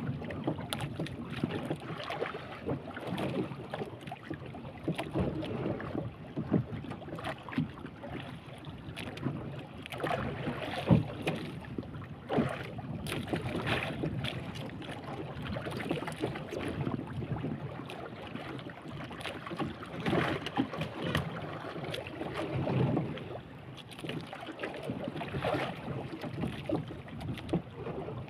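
Wind buffeting the microphone and waves slapping against the hull of a small boat at sea, with irregular knocks and splashes.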